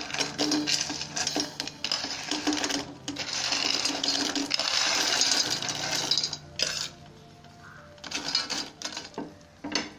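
Crisp fried snack pieces tipped off a plate into a steel pot of jaggery syrup, clattering and scraping in a dense rattle for the first six seconds or so. After that, scattered knocks as a steel ladle stirs them and scrapes against the pot.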